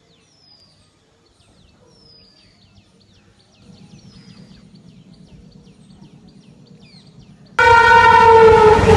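Faint bird chirps over a low rumble, then about seven and a half seconds in a train horn blares suddenly and loudly, its pitch sagging slightly, as a train comes through.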